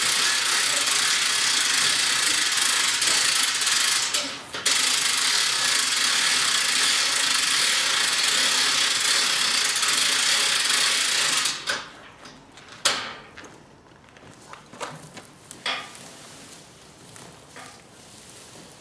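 Hand winch on a bale-lifting trailer being cranked, its ratchet and gears clicking in a fast steady run as it raises a round bale, with a short pause about four seconds in. The cranking stops about twelve seconds in, leaving a few separate clicks and knocks.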